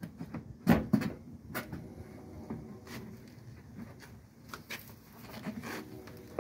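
New plastic headlight assembly of a 2002 Ford Windstar knocking and clicking against its mounting as it is pushed and worked into place, a tight fit where its tabs bind. Two sharp knocks about a second in, lighter clicks and rattles after, and a louder knock at the very end.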